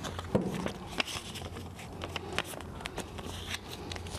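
Small paper slips being unfolded and folded by hand: light, irregular rustling and crackling of paper, over a steady low hum.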